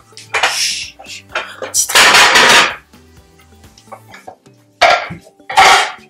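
White ceramic plates clattering as they are handled and set down, in several bursts, the longest lasting about a second, over faint background music.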